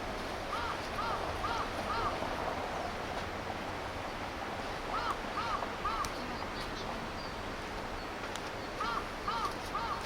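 A crow cawing in three runs of three or four calls about half a second apart, over the steady rush of river water.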